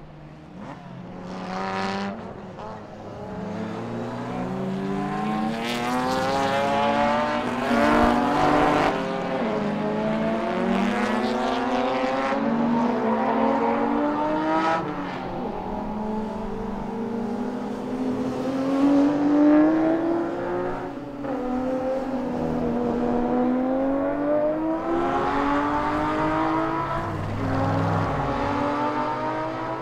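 Racing car engines at full throttle climbing through the gears, the pitch rising and then dropping back at each upshift. The sound builds over the first few seconds and peaks about a quarter of the way in and again past the halfway point as cars pass close.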